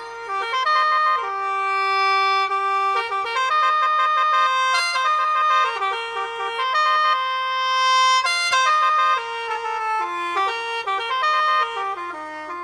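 Background music: a reedy wind instrument plays a melody of held notes that step up and down in pitch.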